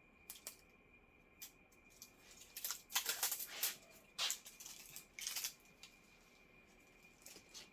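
Tape being pulled off a new roll and torn to wrap wires: several short ripping sounds in the middle, with small clicks and handling noises around them.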